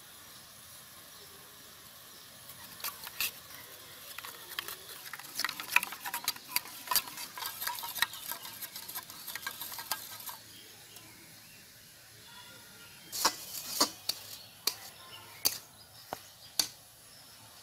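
Steel spoon stirring yogurt and ground spices in a steel bowl, clicking and scraping against the metal in quick irregular taps for several seconds. After a short lull, a handful of sharper metal clinks.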